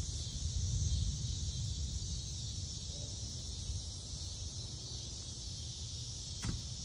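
Quiet rural outdoor ambience: a steady high hiss over a low, uneven rumble, with one short click near the end.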